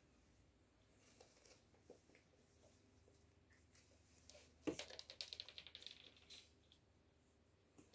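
Oriental kittens' claws scratching and scrabbling on a woven rug as they wrestle: a few faint scratches, then about halfway through a sharp click and a quick run of light ticks lasting a second or two, otherwise near silence.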